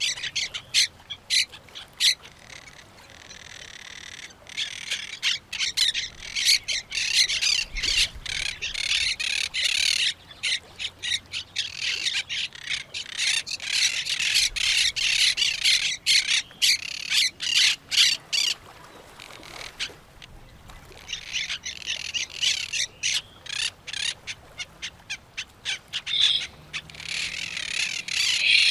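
Parrots squawking and chattering in rapid, overlapping shrill calls, with a couple of brief lulls.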